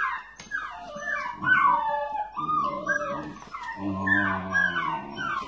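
Several dachshund puppies whining and yelping at once, high cries that rise and fall and overlap one another. A steady low hum comes in about four seconds in.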